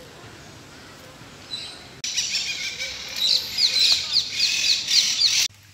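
Birds chirping loudly, starting abruptly about two seconds in, with a quick run of short repeated falling notes, about four a second, before cutting off suddenly near the end.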